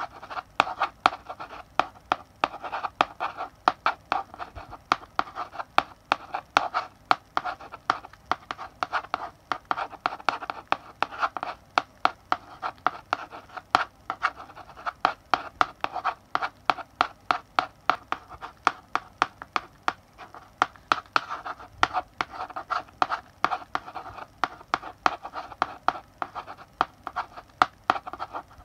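Chalk writing on a blackboard: a steady run of short scratchy strokes and sharp taps of the chalk against the board, several a second.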